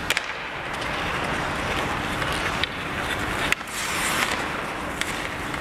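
Ice hockey play: a steady rink noise of skates on the ice, with sharp clacks of sticks and puck every second or so.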